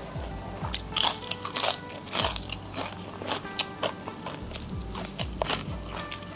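Close-up chewing and biting of crunchy food, with a string of sharp crunches at irregular intervals, the loudest about one and two seconds in. Background music with sustained tones plays under it.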